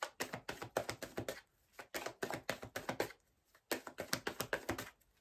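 Tarot cards being handled and laid down on a table: quick runs of taps and clicks in three bursts.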